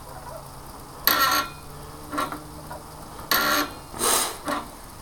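Ungreased pivots of a cable-operated 'mousetrap' lever mechanism creaking as it is worked, five short creaks, the longer ones at about one, three and a half and four seconds in. The creaking is because the parts have not been greased yet.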